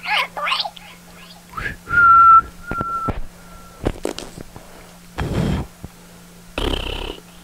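A person whistling a single high steady note, held about half a second, then two fainter, shorter repeats. Squeaky gliding mouth sounds come just before it, and two short blown, breathy bursts come near the end.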